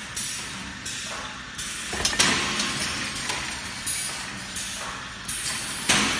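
Automatic brick force wire mesh welding machine running: a quick run of sharp metallic strokes, each followed by a short hiss, about one a second.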